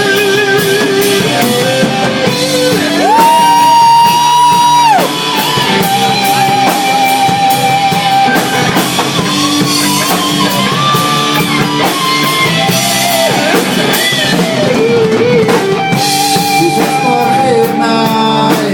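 Live band playing rock music: singing over guitar and drums, with a long held high note starting about three seconds in.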